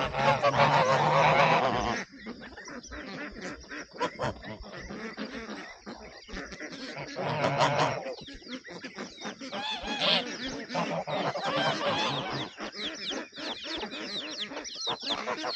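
Domestic geese honking, loudest in the first two seconds and again about seven seconds in, amid many short calls from other farm poultry.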